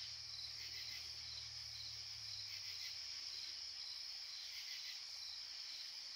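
Night insects, a cricket chorus, chirring steadily in a continuous high trill. A faint low hum fades out about two seconds in.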